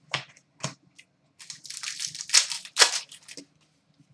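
A few short sharp clicks, then about two seconds of crinkling and tearing as a foil trading-card pack wrapper is ripped open.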